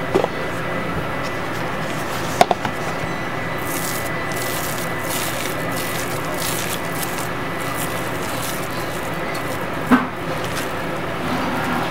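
A plastic food container's lid knocked and lifted off, then hands kneading and squishing a moist rice-bran pickling bed (nukadoko), an irregular gritty rustling for several seconds, with another sharp knock near the end.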